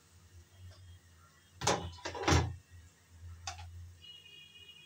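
Kitchenware knocking twice, about half a second apart, then once more lightly about a second later, over a low steady hum.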